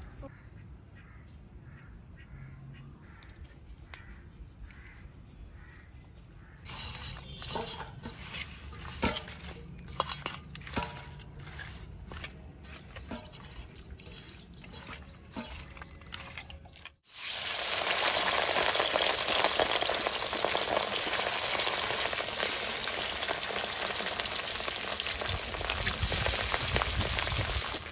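Food frying in hot oil in a pan. At first there is quiet stirring with scattered utensil clicks. After a sudden break just past halfway, steady loud sizzling follows.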